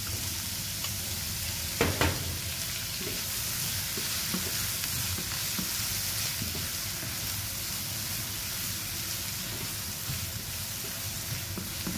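Chopped onion and garlic sizzling steadily in hot oil and butter in a non-stick pan, stirred with a nylon slotted turner; a single knock about two seconds in.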